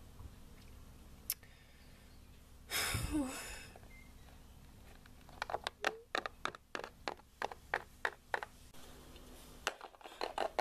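Plastic Littlest Pet Shop figure tapped on a wooden tabletop as it is hopped along by hand, a fast, irregular run of sharp clicks in the second half. About three seconds in, a brief rustle.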